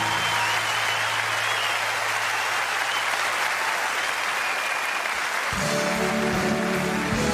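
Large audience applauding, with a low held note from the music underneath. Instrumental music comes back in about five and a half seconds in.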